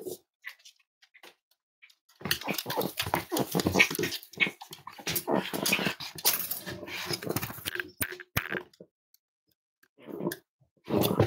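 Cavalier King Charles Spaniels vocalising for about six seconds, starting about two seconds in, with a shorter burst near the end.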